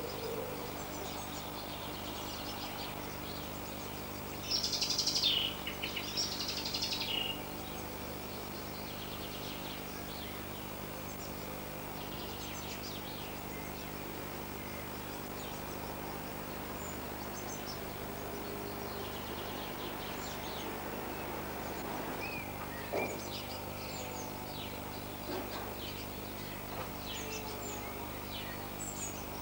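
Small birds chirping and calling, with a louder run of rapid high chirps about five seconds in, over a steady low hum.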